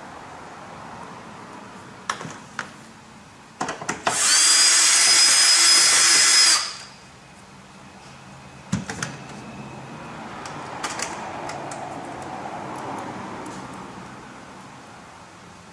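Cordless drill-driver running at a steady speed for about two and a half seconds with a high whine, backing a 7 mm screw out of a car's rear side trim panel. A few sharp clicks of handling come before and after the run.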